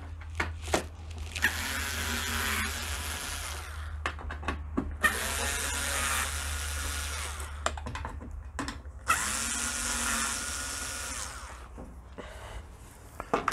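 Small cordless electric screwdriver running in three bursts of about two seconds each, each spinning up and then holding steady, as it backs out the Torx T15 screws on the inside of a dishwasher door. Short clicks and knocks come between the bursts.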